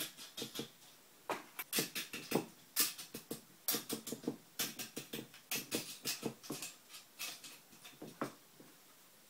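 Small metal hardware (bolts, washers and nuts) clicking and clattering against an aluminum bar as it is fitted into drilled holes by hand: a quick, irregular run of light clicks.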